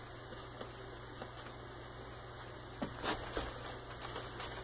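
Faint hand-kneading of bread dough on paper over a counter: a few soft knocks and rustles, the most distinct a little after halfway, over a steady low hum.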